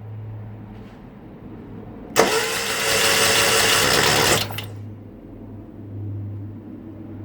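1977 Moto Guzzi T3 California engine being worked with a steady low hum, and a loud even burst of mechanical whirring about two seconds in that lasts about two seconds.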